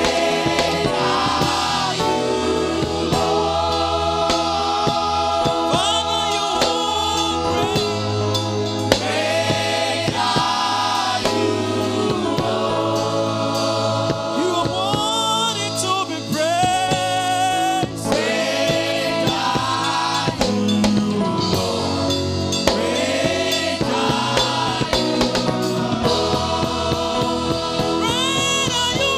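Gospel music: a choir singing a Nigerian praise song over a live band with bass.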